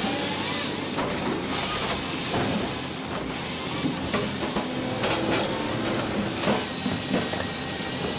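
Log-splitting machine running with a steady hiss, with repeated irregular cracks and knocks as logs are split.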